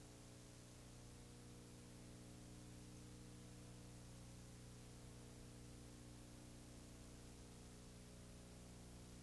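Steady electrical hum, a stack of even unchanging tones, over a faint hiss, with nothing else: the background noise of a transfer of silent film.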